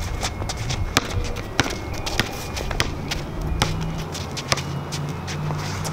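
A basketball being dribbled on a concrete driveway: sharp bounces every second or so. A low steady hum comes in about halfway through.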